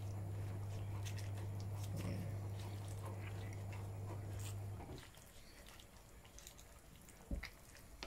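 A steady low hum that cuts out suddenly about five seconds in, with faint clicks and a couple of knocks from a plastic ladle working vegetables in a steel cooking pot.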